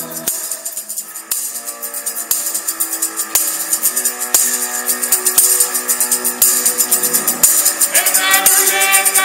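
A band playing: held guitar chords over a steady, bright high-pitched percussion rhythm, with a woman's singing voice coming in near the end.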